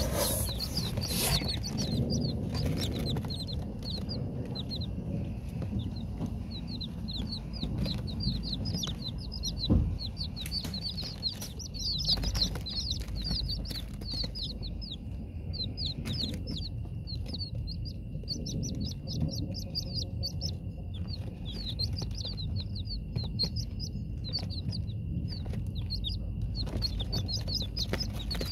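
A group of young domestic chicks peeping continuously: rapid, high chirps, each falling in pitch, over a low rumble. A single sharp thump comes about ten seconds in.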